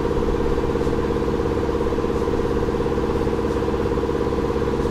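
A machine running steadily: a constant, unchanging mid-pitched hum.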